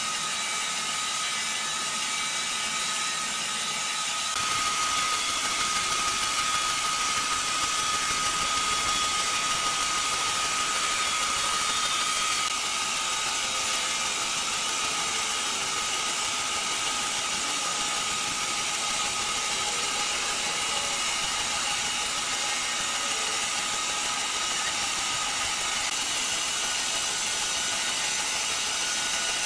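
Industrial band sawmill running, its blade cutting a large log lengthwise: a steady dense mechanical noise. A steady whine joins it about four seconds in, when it grows louder, and drops away about twelve seconds in.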